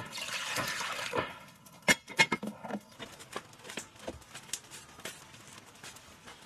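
Water splashing into a metal pot for about a second. A few sharp metallic knocks and clatters follow about two seconds in as the pot is handled and lifted, then lighter scattered taps.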